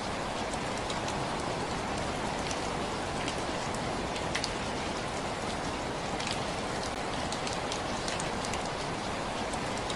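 Steady rain falling, an even patter with many individual drops ticking sharply through it.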